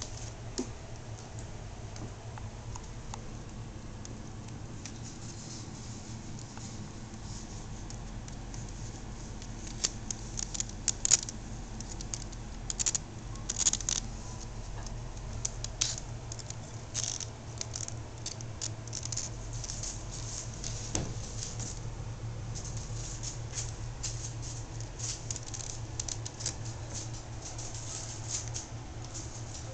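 Kittens' claws scratching and scrabbling on a bookshelf and carpet as they climb and play: irregular clusters of quick, sharp scratches that begin about a third of the way in and carry on to the end, over a steady low hum.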